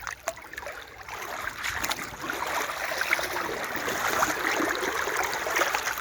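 Shallow brook water splashing and trickling, getting louder about a second in, with small clicks through it.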